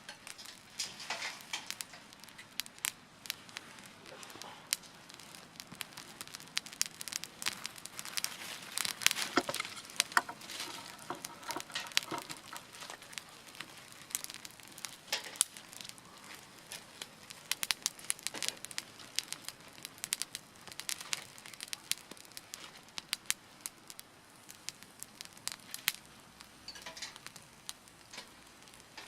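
Dry wood and kindling crackling and snapping in irregular sharp pops, busiest in the middle.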